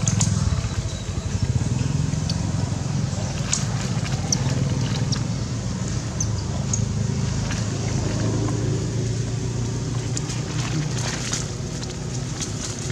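Steady low motor hum, like an engine running nearby, with scattered light clicks and ticks over it.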